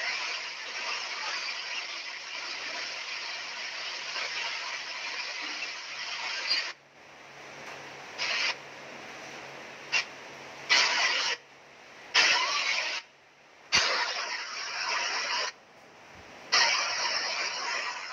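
Steady hiss of heavy rain, which from about seven seconds in drops out and comes back abruptly in short bursts.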